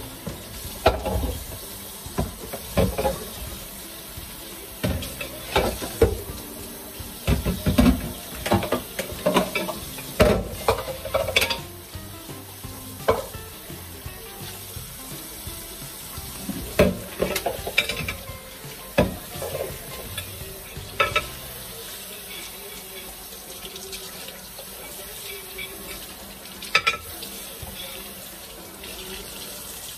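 Hand-washing dishes at a kitchen sink: water running from the tap, with repeated knocks and clinks of dishes and glassware against the sink, most of them in the first two-thirds.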